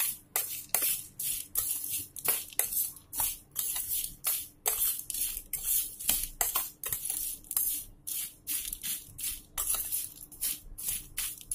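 Steel spoon scraping and stirring dry roasted mango-kernel strips around a stainless steel tray, a rapid run of short scratchy strokes at about two to three a second as the spice powder is mixed in.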